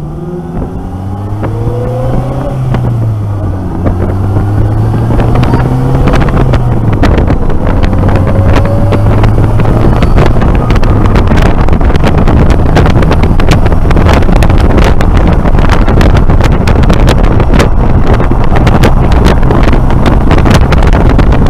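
Polaris Slingshot engine pulling away and accelerating, its pitch climbing, dropping back and climbing again as it goes up through the gears. From about eight seconds in, heavy wind buffeting on the microphone of the open-cockpit roadster grows loud and covers the engine.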